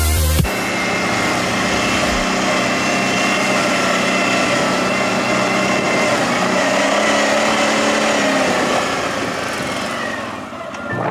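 CFMoto X8 820 quad's V-twin engine running under way, its pitch rising and falling with the throttle and easing off near the end.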